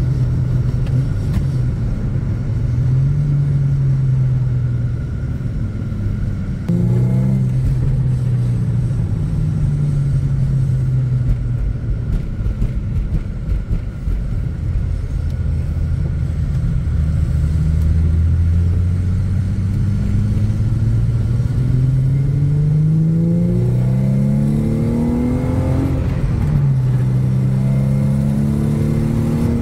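Infiniti G-series sedan's V6 engine heard from inside the cabin while driving. It runs steadily at first, then the pitch climbs as the car accelerates, drops at a gear change with the six-speed manual, and climbs again. The stock exhaust keeps it fairly quiet.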